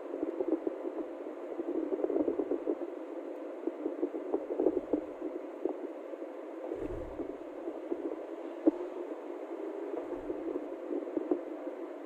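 Steady road and wind noise from a vehicle travelling along a highway, fluttering irregularly, with a brief low thump about seven seconds in.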